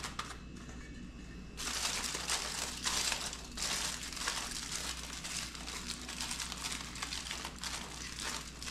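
Aluminium foil crinkling as it is folded and crimped by hand, the edges of a foil packet being closed with double folds to seal it. The crinkling is faint at first and becomes louder and continuous from about a second and a half in.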